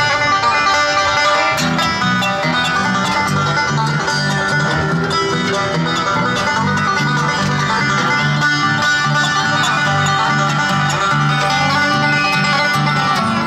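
Bluegrass music: banjo and guitar picking over a bouncing bass line that comes in about two seconds in, with a steady toe-tapping beat.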